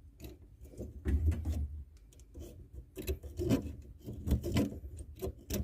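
Hand deburring tool scraping inside the cut end of a 15 mm copper pipe, turned clockwise in short uneven strokes with small metallic clicks, shaving off the burr.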